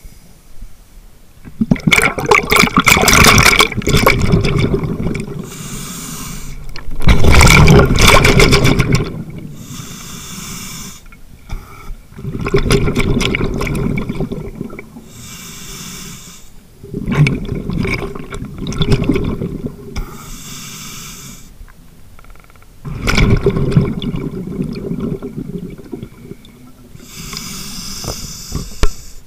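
Scuba diver breathing through a regulator, heard close up from a mask-mounted microphone. Each exhale is a loud bubbling rush and each inhale a shorter hiss of air. There are about five breaths, one every five to six seconds.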